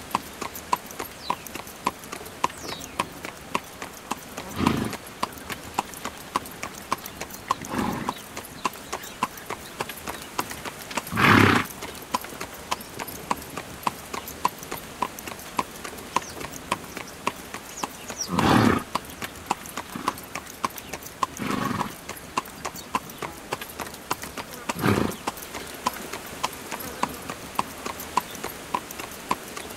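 Hooves of a carriage horse clip-clopping at a walk on an asphalt road, a steady, even rhythm of sharp strikes. Six short, louder sounds break in every few seconds, each under a second long.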